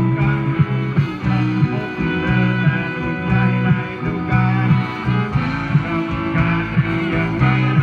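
Guitar-led music playing without singing, over a steady line of bass notes.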